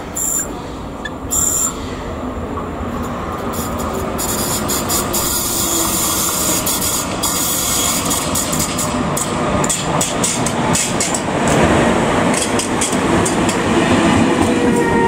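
Locomotive-hauled train approaching along the station tracks, its noise building steadily. In the second half come rapid clicks of wheels over rail joints, and near the end a steady tone slowly falls in pitch.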